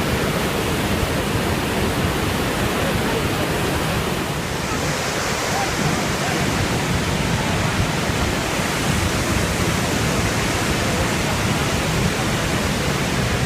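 Steady rushing noise of the Iguazu Falls, a large waterfall, with a little more hiss from about four seconds in.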